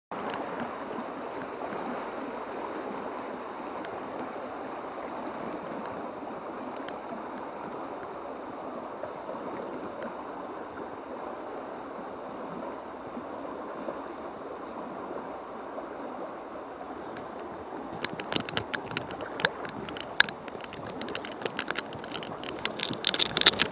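Shallow river water running and splashing over stones close to the microphone, a steady rush. From about three quarters of the way in, sharp crackling clicks and rustles join it.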